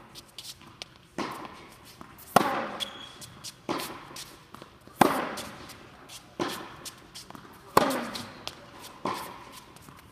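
Tennis rally on an indoor court: sharp racquet-on-ball hits and ball bounces about every second and a half, each ringing in the hall, with shoes scuffing on the court between them.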